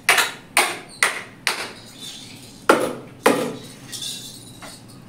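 A series of six sharp knocks. The first four come about half a second apart, and after a pause of about a second two more follow, the last two the loudest.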